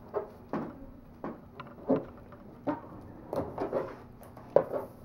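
Inflated latex balloon squeaking and rubbing under the fingers as its neck is tied off, a string of short, irregular squeaks.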